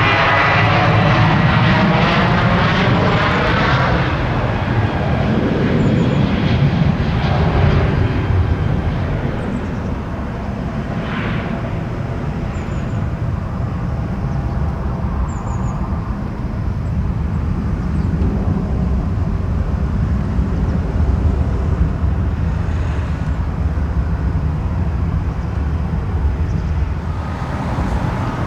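Twin-engine jet airliner passing close by with a loud swirling whoosh at first, then the engines' steady low rumble carrying on as it moves away.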